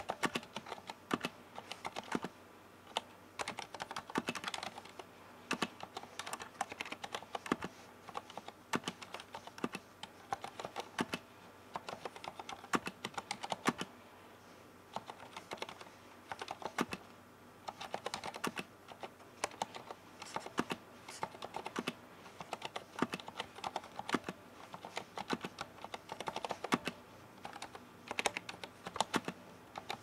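Steady typing on a Leopold FC980M mechanical keyboard with Cherry MX Silent Red switches, whose dampened switches give muted keystrokes. The clicks come in an irregular stream with a brief lull about halfway through.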